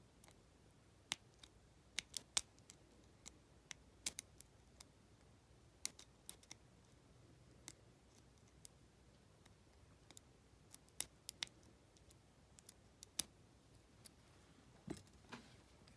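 Lock pick and tension wrench working inside an Abus T65AL/40 padlock's five-pin keyway: small, irregular metallic clicks as the pick lifts pins and snags on warding, some coming in quick pairs, with a duller knock near the end.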